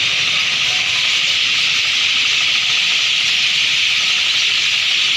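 A large flock of birds massed in one tree, all chirping at once into a dense, steady chatter.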